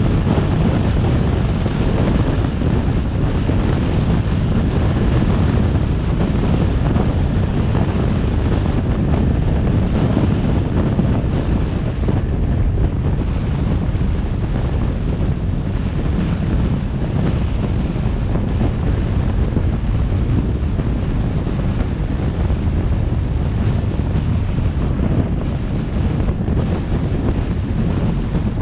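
Steady wind rushing over the microphone, with a low road rumble, from a vehicle driving along an open road.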